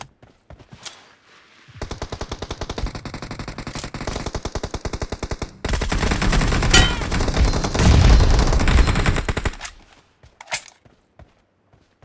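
Rapid automatic gunfire from a shooter video game: a lighter, steady burst begins about two seconds in, then heavier, louder fire takes over midway and stops about two seconds before the end, followed by a few single clicks.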